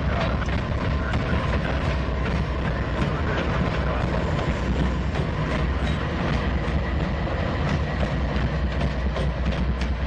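Norfolk Southern diesel-electric locomotives rolling slowly past at close range: their engines run with a steady low rumble while the wheels click over rail joints and switch points.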